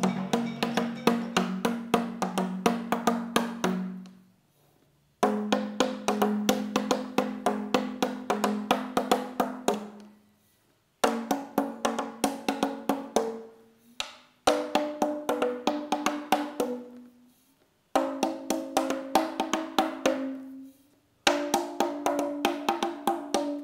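Pumped plastic-bottle percussion instrument (patol, 'pompa botol'): the air-filled plastic bottle on a hand pump is tapped quickly, giving a pitched knocking note that steps upward as air is pumped in. The taps come in five runs separated by short pauses, each run fading toward its end.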